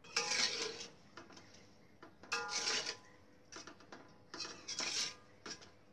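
Metal ladle scraping and knocking against a wok while stirring the broth, in about five short bursts with a metallic ring.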